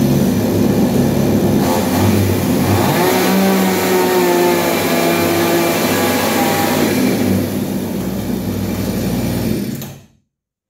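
Chinese 52cc two-stroke chainsaw engine running at high revs while its high-speed (H) carburettor screw is adjusted with a screwdriver. The revs climb about two seconds in, hold high, drop about seven seconds in, and the engine cuts off suddenly near the end.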